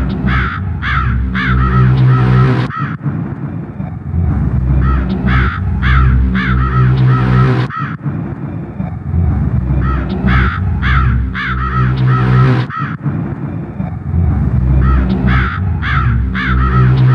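Sound-collage intro of a noise-drone track: a low, droning loop that repeats about every five seconds. Each cycle carries a cluster of short, harsh, caw-like calls high above the drone.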